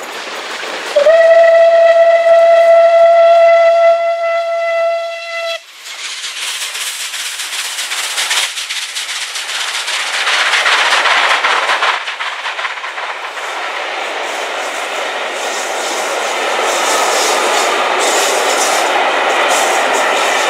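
A steam locomotive's whistle blown in one long steady note lasting about four and a half seconds. The locomotive then passes at speed, its rush of noise loudest about ten seconds in, and a long train of coaches rolls by steadily on the rails.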